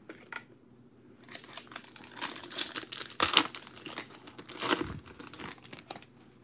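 A trading card pack's wrapper being torn open and crinkled, in irregular crackles with the sharpest tears about three seconds in and again near five seconds.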